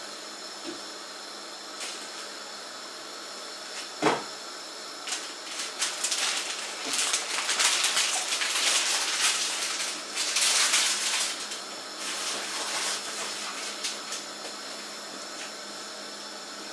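Crusty baguette halves crackling and rustling under a hand pressing and spreading topping over them on a wooden cutting board, loudest in the middle stretch. A single knock comes about four seconds in.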